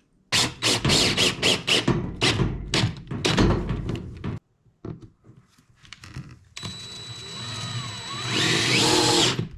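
Power drill driving cement board screws into cement backer board: a run of quick knocks for about four seconds, then, after a short lull, the drill motor running steadily with a thin whine for nearly three seconds before cutting off.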